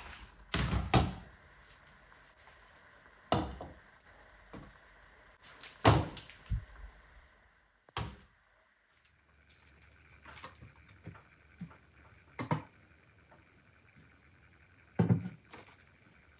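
Kitchen containers being handled and set down on a worktop and kitchen scale: a half-dozen separate knocks and clacks of glass and plastic, with the loudest about one, six and fifteen seconds in.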